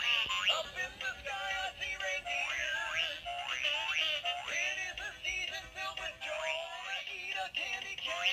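Animated plush snowman toy singing a song through its small built-in speaker: a thin, electronic-sounding voice with almost no low end.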